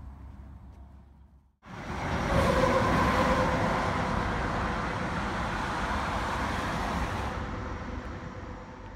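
Highway traffic: cars and a truck running along the road, a steady wash of tyre and engine noise with a faint whine in it. It starts suddenly about a second and a half in and eases off near the end.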